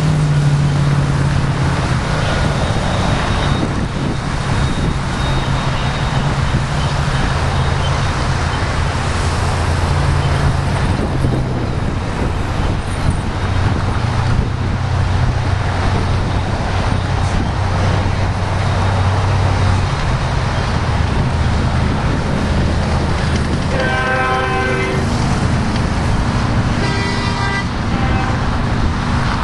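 Steady freeway traffic with cars and trucks passing, mixed with a passing stack-container freight train, over a low engine drone. A horn sounds briefly twice near the end.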